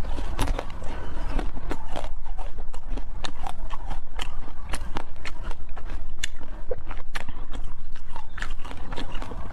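Close-miked chewing of soft chocolate cake: irregular wet mouth clicks and smacks, several a second.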